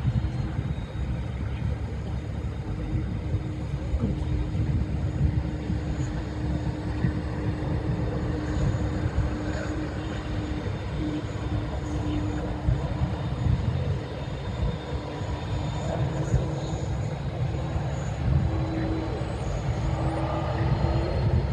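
McDonnell Douglas MD-11 trijet freighter's engines running as the jet rolls slowly along the runway: a steady low rumble with a faint steady hum above it.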